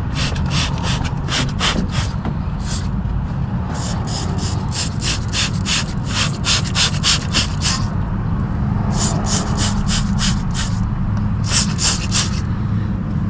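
Hand tool worked in quick back-and-forth strokes on the engine, about three strokes a second, in several runs with short pauses between, over a steady low hum.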